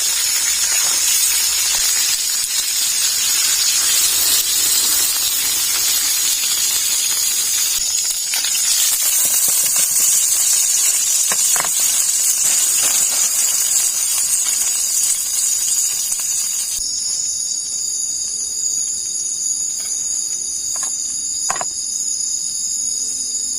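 A loud, steady high hiss, then about 17 seconds in it suddenly gives way to a forest insect chorus of several steady high-pitched tones.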